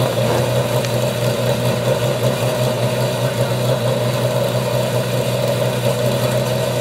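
Radical SR8LM race car's V8, built from two Suzuki Hayabusa engines, idling steadily with no revs.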